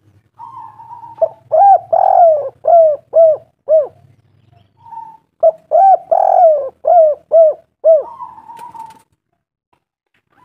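Spotted dove cooing: two phrases, each a short steady lead-in note followed by a run of about six short, arching coos, with a pause of about a second and a half between them.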